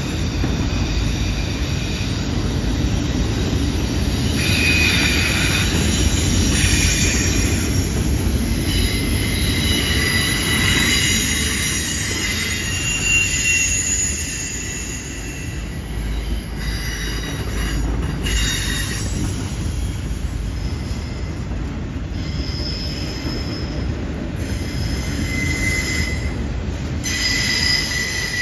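Freight train of autorack cars rolling by on a curve. Wheels rumble steadily on the rail, and high-pitched wheel squeal comes and goes.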